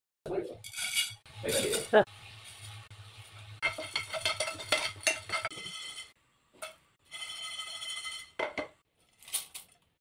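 Metal utensils clinking and a spoon stirring against a steel bowl and a frying pan, in several short bursts broken by sudden silent cuts. A sharp clink about two seconds in is the loudest.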